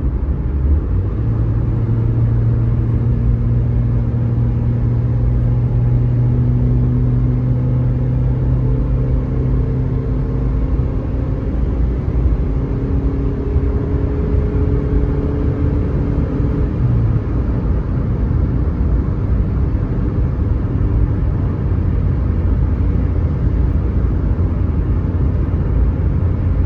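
A car driving, with a steady low rumble of engine and road noise. Its engine note rises slowly through the first half and then fades into the rumble.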